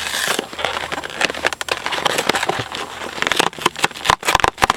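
Paperboard takeout chicken box rustling and crackling as it is handled, a dense run of sharp crinkles that grows louder and sharper near the end.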